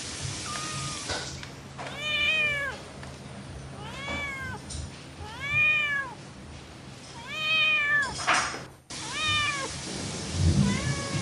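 A long-haired tabby cat meowing repeatedly: about six meows one to two seconds apart, each rising then falling in pitch. A couple of dull low thumps come near the end.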